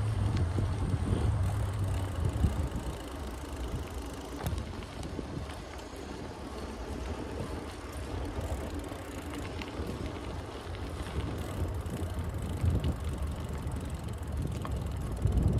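Trek Marlin 6 mountain bike being ridden: steady tyre and road noise with scattered small ticks and rattles. Wind rumbles on the microphone, strongest in the first two seconds, then eases.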